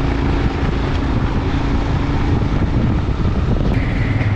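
A vehicle driving, its engine and road noise running steadily under wind buffeting the microphone. A thin high steady tone joins near the end.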